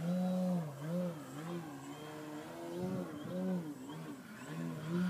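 Hacker A60 electric motor spinning a 21x10 Xoar propeller on a 3DHS 74-inch Edge RC aerobatic plane, a buzzing drone whose pitch rises and falls several times as the throttle is worked.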